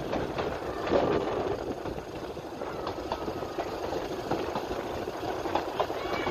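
Narrow-gauge steam railway train running along the track: a steady rumble with irregular clanks and clicks.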